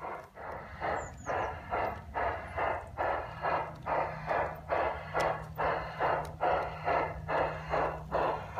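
LGB garden-railway model Mallet steam locomotive chuffing steadily, about two and a half chuffs a second, as it works a log train. A low steady hum joins about three seconds in.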